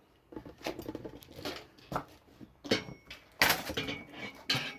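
Clattering and scraping of a burnt, microwave-damaged toaster's metal parts as it is handled and pulled about, in irregular knocks with a louder clatter past the middle. A faint steady high tone sounds through the second half.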